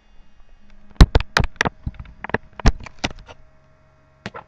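A quick, irregular run of sharp knocks and clicks, about a dozen over two seconds, followed by a single knock near the end.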